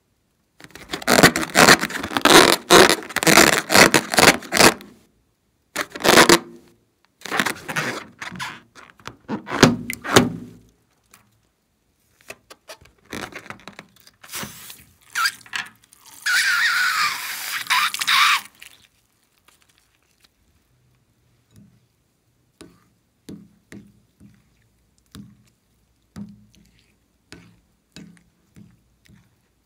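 A latex balloon squeezed and handled, its rubber rubbing and clicking in loud bursts. About sixteen seconds in, after it is pierced with a pin, its red contents spill into a glass bowl in a hissing rush. After that, a spatula stirring glue and glitter in the glass bowl, in soft regular taps about one and a half a second.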